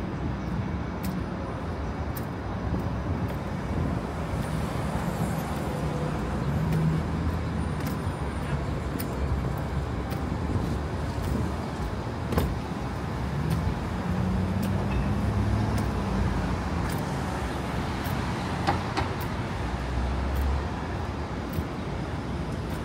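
City street traffic: cars passing with engine hum over a steady urban background, with the low hum of passing vehicles swelling and fading several times.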